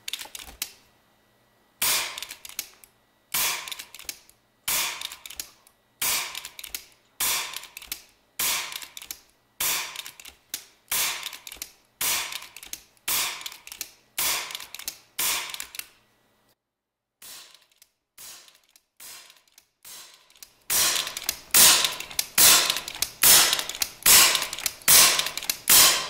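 FX Impact PCP air rifle firing shot strings: about a dozen sharp shots a little over a second apart, a few fainter clicks, then a rapid-fire string of about ten shots at roughly two a second.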